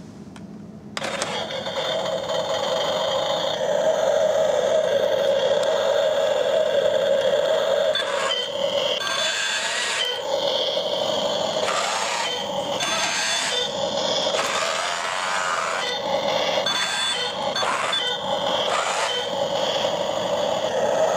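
Construction Force Grappler RC toy crane switched on: its built-in electronic engine sound effect starts abruptly about a second in and keeps running, changing in steps again and again in the second half as the crane's functions are worked.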